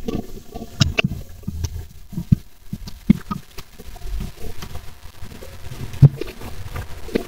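Sheets of paper being handled and leafed through: irregular soft rustles with scattered small clicks and taps.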